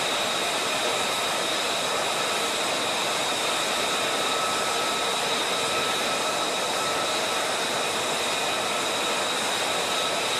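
F-35 Lightning II jet running on the ground before take-off: a steady rushing jet noise with a high-pitched whine held over it.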